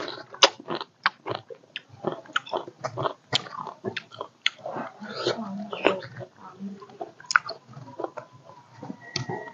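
A person chewing pomegranate arils and orange segments: irregular crunching and wet clicks, several a second.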